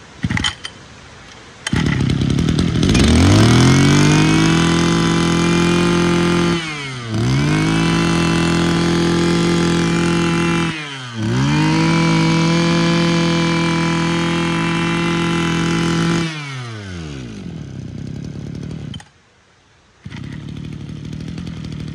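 Mitsubishi TL26 26cc two-stroke brush cutter engine starting and revving up to a steady high-pitched full throttle. The throttle is let off and opened again twice, then the engine falls back to idle and stops.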